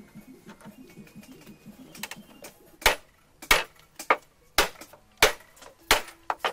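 Heavy club hammer striking the wooden boat's planking: seven sharp knocks at an even pace, a little over one and a half per second, starting just under three seconds in, one of them lighter.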